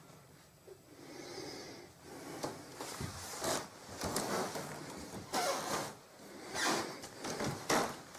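Footsteps and handling noise of someone moving about a small room: an irregular string of short scuffs and knocks, a few of them a little louder in the second half.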